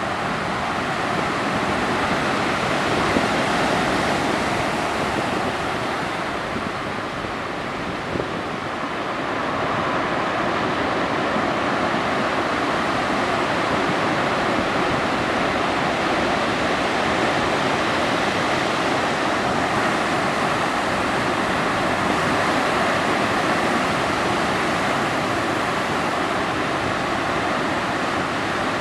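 Atlantic Ocean surf breaking continuously, a steady rush of waves that eases a little several seconds in and then builds again.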